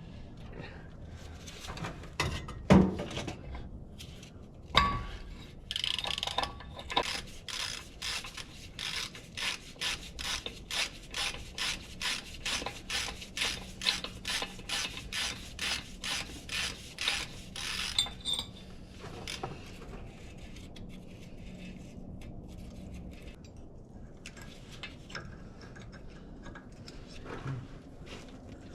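Hand-tool work on a truck's front hub assembly: two sharp knocks, then about twelve seconds of even, rhythmic rasping strokes, about two and a half a second, then quieter metal handling.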